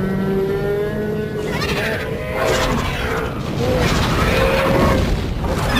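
Background music with short animal calls sounding over it several times.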